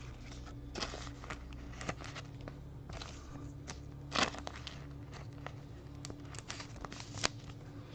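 Trading cards being handled: faint scattered rustles and small clicks, with a louder tick about four seconds in and another near the end, over a low steady hum.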